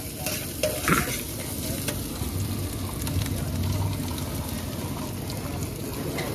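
Shredded cabbage and onion sizzling in a hot wok over a gas flame as they are stir-fried, with a metal spatula scraping and clicking against the pan, most sharply in the first couple of seconds.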